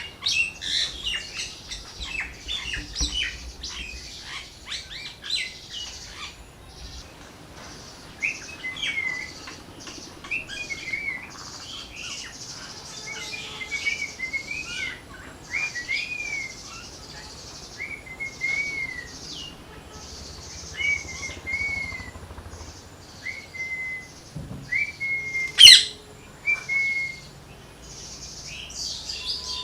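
Parrots calling: a dense burst of overlapping chirps, then a string of short whistled notes that rise and fall, roughly one a second, with one loud, sharp shriek about 26 seconds in.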